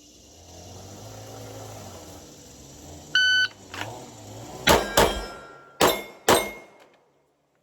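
A shot timer beeps once. About a second and a half later a handgun fires four shots: a quick pair, then a second pair a moment later, the pattern of a two-shot, two-target transition string.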